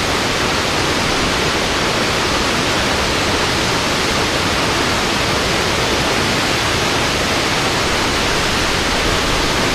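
Waterfall heard close up: falling water making a loud, steady, unbroken rush.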